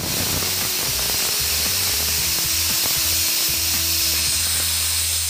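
Aluminium stovetop pressure cooker whistling: the weight on the vent lifts and steam jets out in a loud, steady hiss that starts suddenly, the sign that the cooker has come up to full pressure.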